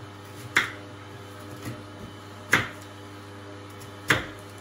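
Kitchen knife cutting through pears and striking a wooden cutting board: three sharp knocks, a second and a half to two seconds apart, over a steady low hum.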